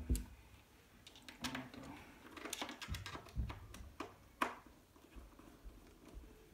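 Scattered small clicks and taps of a Torx T10 screwdriver working the screws that hold an iMac's display to its metal frame, with a dull thump right at the start.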